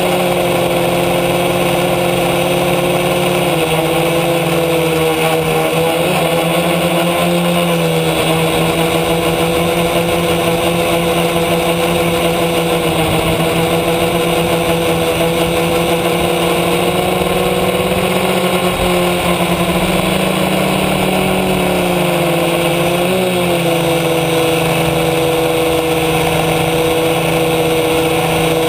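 An F450 quadcopter's four brushless motors and propellers in flight, heard from the camera on its own frame as a loud, steady hum. The pitch wavers briefly a few seconds in and again near the end.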